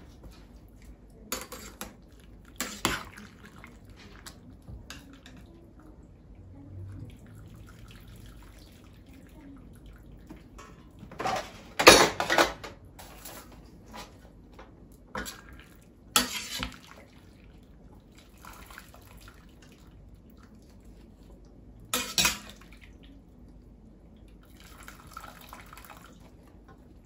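Kitchen handling sounds: water dripping and dishes and utensils clinking, with a few sharper clatters and knocks spread through, the loudest about halfway through.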